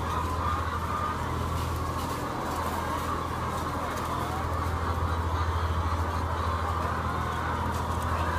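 A large flock of colony-housed laying hens clucking and chattering together, many overlapping calls, over a steady low machinery hum.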